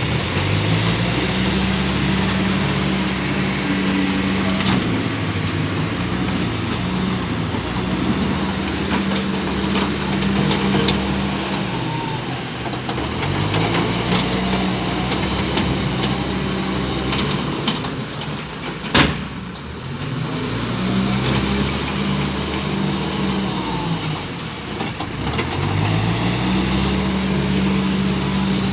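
Bobcat B900 backhoe loader's diesel engine working under load, its revs rising and holding high, then dropping back, three times over as it works the bucket, with one sharp clank about two-thirds of the way through.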